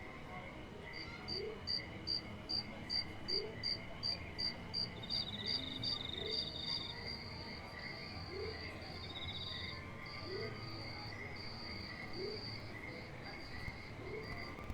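Crickets and other insects chirping in chorus: a high, rhythmic chirp about three times a second that lengthens into longer trills after about six seconds, over a steady high chirring. A faint low rising call repeats about once a second beneath them.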